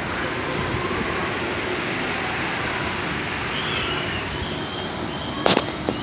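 Steady rushing noise of a moving amusement-park train ride, with one sharp knock about five and a half seconds in.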